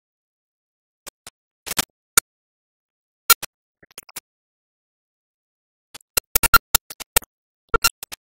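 Scattered sharp clicks and pops over dead silence, denser in a cluster near the end: film-print crackle on a newsreel whose soundtrack is missing.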